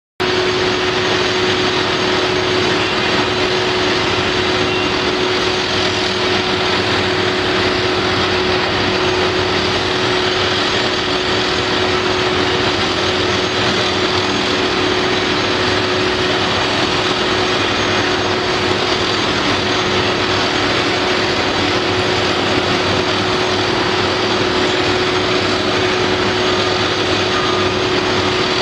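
Steady drone of construction-site machinery, with a constant unchanging whine held at one pitch over a dense rumble and hiss.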